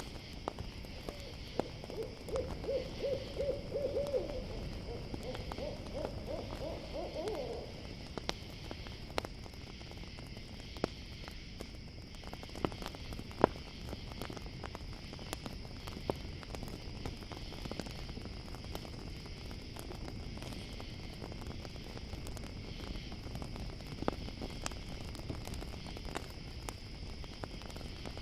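An owl calls a fast run of short hoots starting about a second in and lasting some six seconds, the notes climbing in pitch near the end. Under it a campfire crackles with scattered sharp pops, and crickets chirr steadily.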